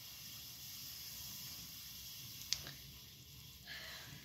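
Bianyo marker tip drawing on sketchbook paper: faint scratchy strokes, with one sharp click about two and a half seconds in and a short scratchy stroke near the end.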